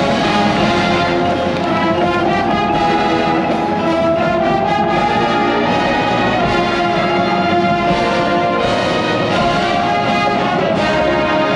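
High school marching band playing, brass holding sustained chords with a few sharp hits here and there.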